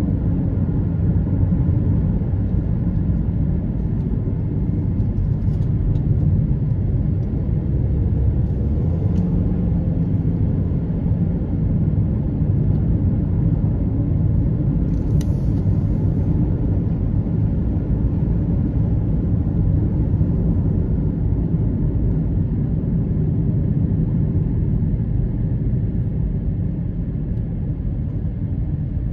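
Steady low rumble of a vehicle driving at road speed, heard from inside the cabin: engine and tyre noise.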